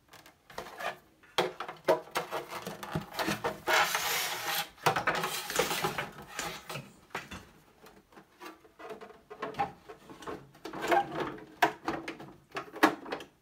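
Plastic back shell of an Apple Monitor III being forced down over the monitor's chassis: repeated scraping, rubbing and knocking of the case against the frame. The loudest stretch comes about four to six seconds in, with another near the end.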